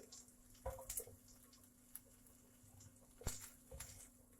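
Near silence with a low steady hum and a few faint clicks and knocks of kitchen utensils handling drained fried pork belly slices, the sharpest knock about three seconds in.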